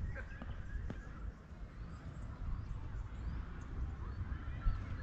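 Outdoor ambience at the water's edge: a steady low rumble of wind on the microphone, with scattered short bird chirps and a couple of faint clicks in the first second.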